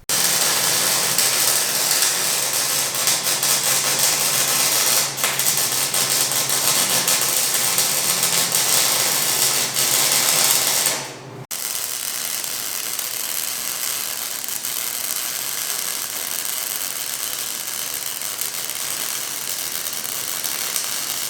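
Wire-feed (MIG) welder crackling steadily while welding on a Dana 60 axle housing and truss, in two stretches with a cut about halfway through; a low steady hum sits under the first stretch.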